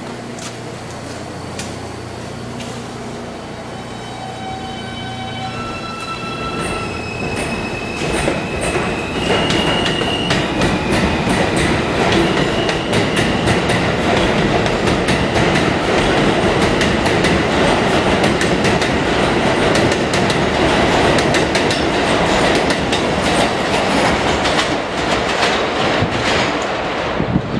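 R160A subway train accelerating away from the platform: its electric propulsion gives a string of steady whining tones that step up in pitch over the first ten seconds or so. Then the wheels clatter over the rail joints ever faster and louder as the cars run past, with a high whine carrying on above the clatter.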